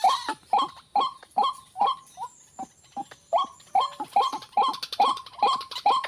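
White-breasted waterhen calling: a fast series of short, harsh 'ruak' notes, about three a second, going on without a break.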